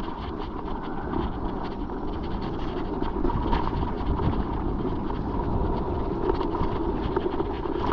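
Mountain bike riding over rough, rattly trail: tyre noise on the ground and a continuous clatter of chain and frame rattles, with wind buffeting the microphone.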